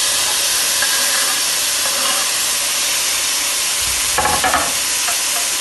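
Chopped tomatoes frying with onions in hot coconut oil: a steady, loud sizzle while a spoon stirs the pan. About four seconds in there is a brief louder clatter of the utensil against the pan.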